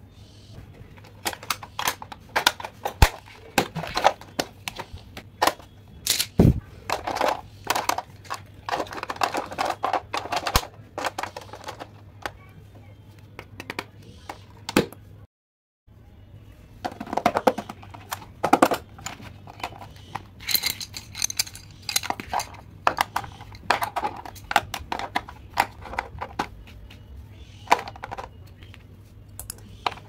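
Plastic pencil cases being handled and filled: quick clicks and clacks of pencils, erasers and sharpeners set into plastic compartments and lids and drawers snapping, with short rubbing and scraping between them. A low steady hum runs underneath, and the sound drops out completely for about half a second midway.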